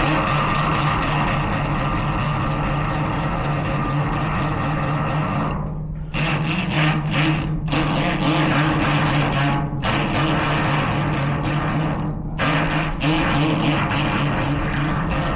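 Electric pick gun buzzing steadily against the pins of a garage door lock cylinder in an attempt to pick it open, its sound dipping out briefly several times.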